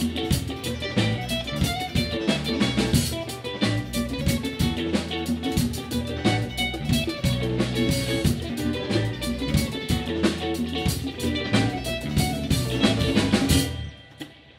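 A band playing live: electric mandolin strummed over bass and drum kit, with a fast beat. The music stops abruptly near the end.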